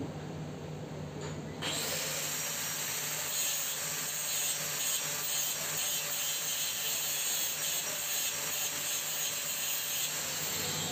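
Welding arc struck about one and a half seconds in, then a steady hiss as the root pass is run on a socket joint of 1.5-inch pipe.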